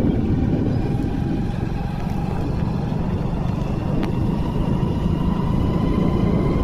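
Steady low rumble of a moving vehicle, with a faint whine that climbs slowly in pitch and a single light click about four seconds in.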